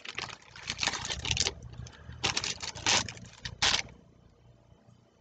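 Clear plastic bag crinkling and rustling in irregular bursts as swatch sticks are handled inside it, stopping about four seconds in.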